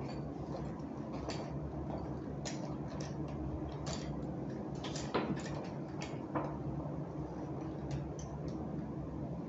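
Scattered light clicks and taps of kitchen handling as flour is brought out and dusted over risen dough, over a steady low hum.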